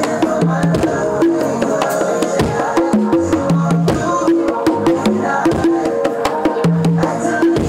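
A set of LP congas played by hand in a steady, fast rhythmic pattern. Slaps and muted strokes mix with ringing open tones, and each drum sounds at its own pitch.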